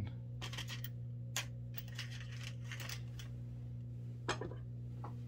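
Light metallic clicks and clinks of a small screw being picked up and handled, coming in irregular clusters over the first three seconds, then a sharper single click about four seconds in.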